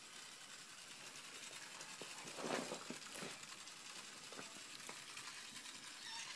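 Faint handling noise of a toy train on its track: a few soft clicks and rustles over a quiet hiss.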